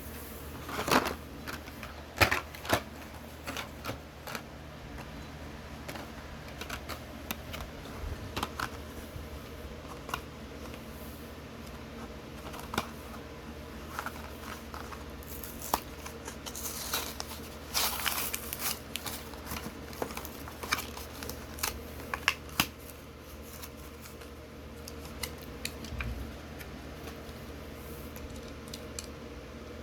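Toy packaging being handled and opened: irregular clicks and taps, with a few short bursts of rustling or crinkling about a second in and again near the middle.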